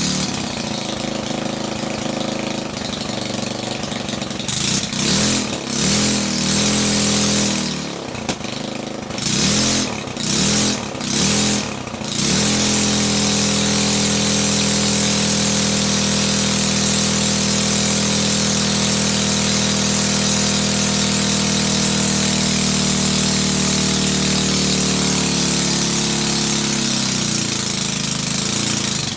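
Three-horsepower Briggs & Stratton single-cylinder engine running on nitromethane: a few short revving bursts, then about fifteen seconds held steady at high speed, with the speed dropping off near the end.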